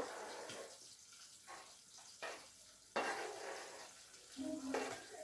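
Water from a kitchen tap running and splashing in short bursts that start suddenly and fade. A steady low tone comes in near the end.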